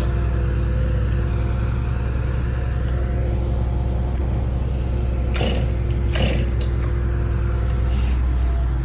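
An engine running steadily at an even low pitch, with two short bursts of noise about five and six seconds in.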